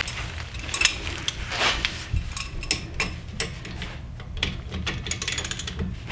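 Socket ratchet wrench clicking in short runs with scattered tool knocks, including a quick, even run of clicks about five seconds in.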